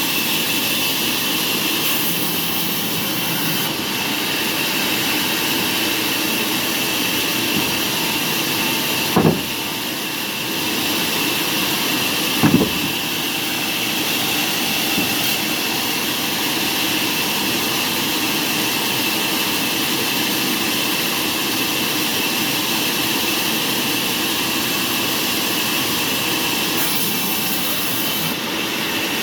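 Sawmill machinery running steadily, a continuous mechanical noise with a high whine, broken by two brief louder thumps about nine and twelve seconds in.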